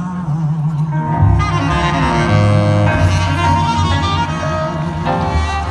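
Live jazz band playing: long held melody notes over a steady bass line.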